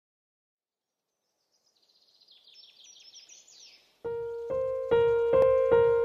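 A songbird sings a quick series of short, high notes, fading in from silence. About four seconds in, a piano melody starts with notes struck about twice a second and becomes the loudest sound.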